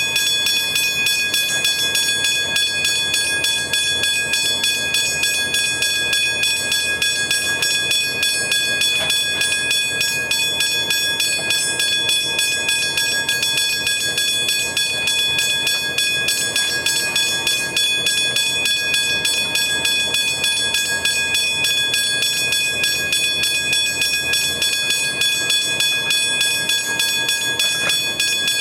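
Heavy diesel machinery at a rail work train running steadily, with a constant high-pitched whine over a low rumble.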